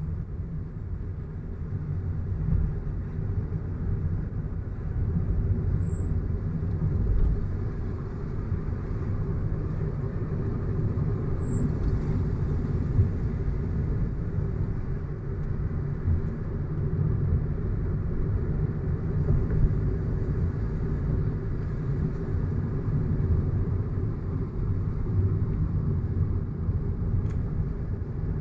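Steady low rumble of a car being driven along a road: engine and tyre noise.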